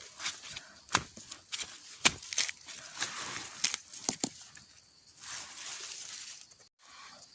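Dry leaves and twigs rustling and crackling underfoot and by hand, with irregular sharp snaps, as someone pushes through undergrowth in a bamboo grove.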